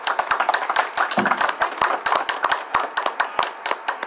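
Audience applauding: a room of people clapping their hands, many separate claps.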